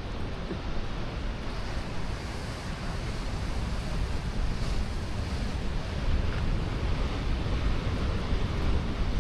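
Ocean surf breaking against rocks along the shore, a steady rushing wash of water, with wind buffeting the microphone.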